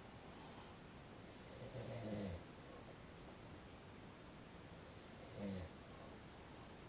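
A man snoring in his sleep: two snores about three and a half seconds apart.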